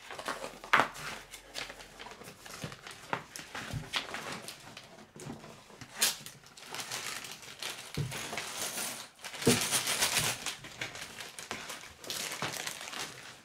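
Paper rustling and crackling as a large folded instruction sheet is opened out, in irregular bursts, mixed with the crinkle of a plastic parts bag being handled.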